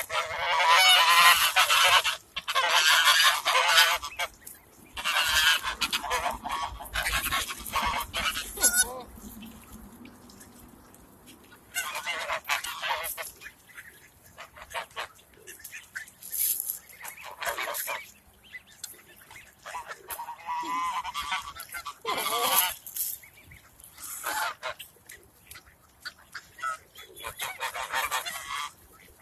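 Flock of white domestic geese honking loudly, calls crowding over each other for the first nine seconds, then coming in shorter, separate bursts.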